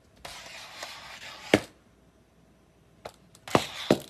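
Three sharp taps: one about one and a half seconds in and two in quick succession near the end, each over a short stretch of hiss.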